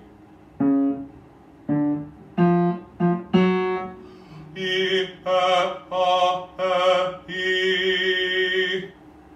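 A male voice singing vocal warm-up exercises: a few short separate notes at different pitches, then a string of longer notes with vibrato, the last held for about a second and a half.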